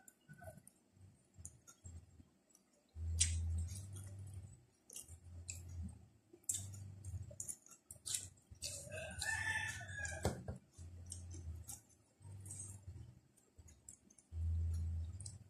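Close-miked chewing: dull low thumps in short runs as the jaw works, with scattered wet mouth clicks. A rooster crows once in the background about nine seconds in.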